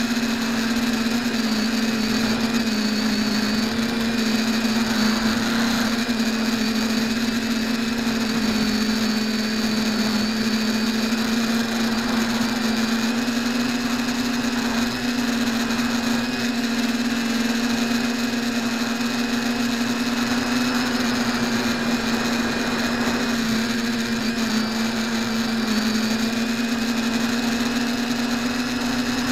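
TBS Discovery–style quadcopter's brushless motors and propellers whining steadily in flight, picked up by the small keychain camera on the frame. The pitch wavers a little as the throttle changes.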